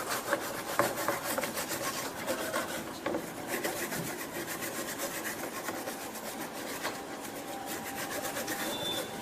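Toothbrush scrubbing a laptop motherboard: a steady run of quick, scratchy brush strokes.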